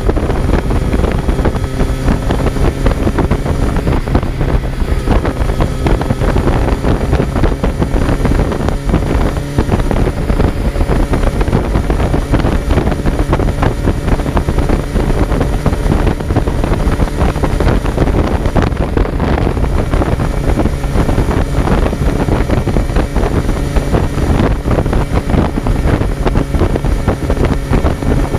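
Kawasaki Z900's inline-four engine running at fairly steady revs while the motorcycle is ridden, heard onboard with heavy wind buffeting on the microphone.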